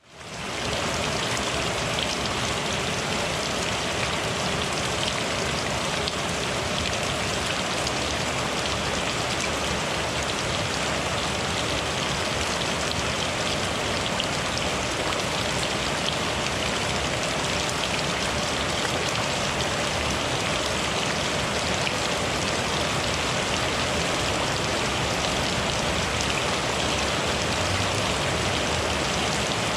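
Steady rain falling, an even hiss dotted with many small drop ticks, fading in within the first second.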